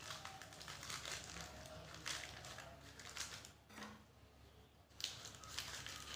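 Plastic wrapping around a small baking powder container crinkling in a series of short, faint rustles as it is handled, with a brief lull partway through.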